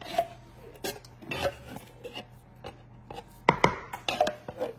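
Wooden spoon scraping thick condensed soup out of a metal can, with several sharp knocks of the spoon against the can, the loudest about three and a half seconds in.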